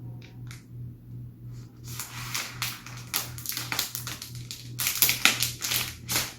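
Protective plastic film being peeled off a new iPad Pro's screen: an irregular run of crackling and ripping that starts about two seconds in and is loudest about five seconds in.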